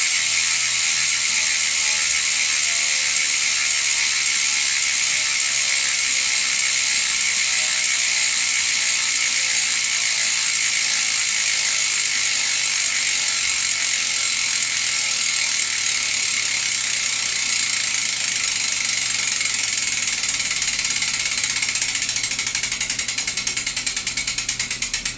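Novatec D902SB rear hub's freehub, 40 points of engagement, clicking as the spinning rear wheel freewheels. The pawls ratchet so fast that the clicks blend into a steady buzz. Near the end the wheel slows, and the clicks become separate and slower.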